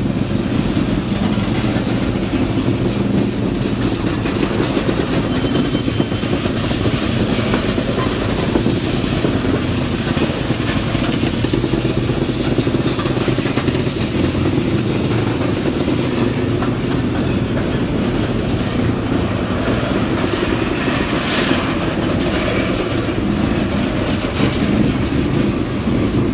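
Freight train cars rolling past close by, a tank car and then covered hoppers, their steel wheels running on the rails in a loud, steady, unbroken noise.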